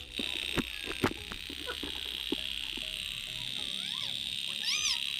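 Tin pop-pop (otok-otok) toy boat running in a basin of water, its candle-heated boiler putting in a fast, even pulsing. A few sharp knocks sound in the first second, and short rising-and-falling chirps come near the end.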